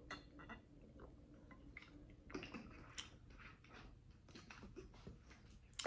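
Faint gulping and mouth sounds from drinking out of a plastic bottle, with a few soft clicks and smacks, the clearest about two and a half to three seconds in.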